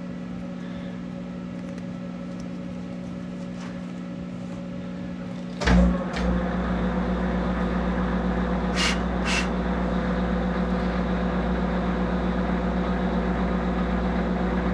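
Monarch 10EE lathe's electric spindle drive: a steady background hum, then a clunk about six seconds in as the spindle starts, after which it runs with a louder, steady electric hum. Two short clicks come a little later.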